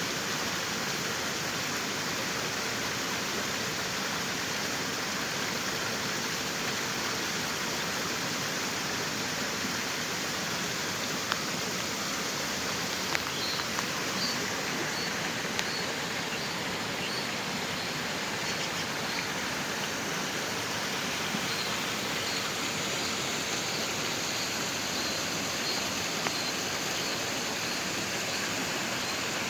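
Steady rushing of flowing water from a stream, unbroken throughout, with a faint series of short high notes from about halfway in.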